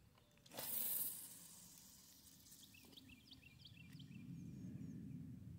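Fishing line hissing off a fishing reel as a crappie minnow rig is cast, a sudden short zip about half a second in that fades over the next second. A few short, high chirps follow.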